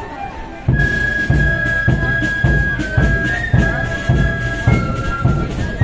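Marching flute band playing: flutes carry the tune in held notes over a steady beat of bass drum thumps. After a brief quieter moment the full band comes in loudly about three-quarters of a second in.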